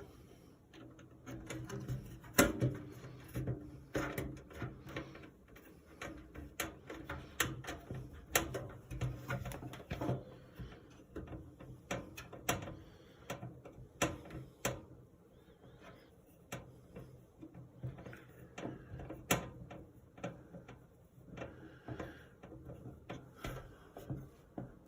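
Phillips screwdriver driving motherboard screws into case standoffs: an irregular run of small metallic clicks and taps as the screws are turned and the parts are handled, over a low hum.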